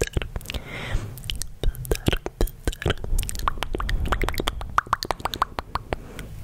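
ASMR mouth sounds made right at a condenser microphone: a quick, irregular run of wet tongue clicks and lip pops, several a second, over a low rumble from hands moving close to the microphone.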